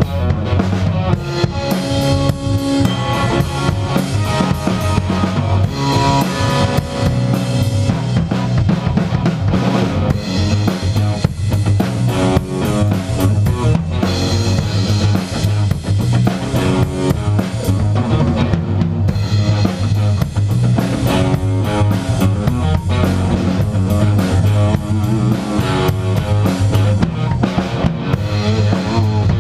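A band playing together: drum kit, electric bass and electric guitar, with the kick and snare of the drums standing out over a steady beat.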